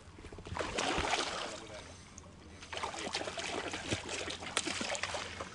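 Shallow lake water splashing and sloshing as people wade at the shore and handle a black carp retention sack in the water, in two spells: briefly about half a second in, then again from nearly three seconds in.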